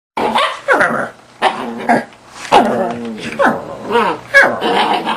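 A dog vocalizing back and forth in a 'talking' manner: a quick string of short whining, yowling calls, many sliding down in pitch, starting just after a moment of silence.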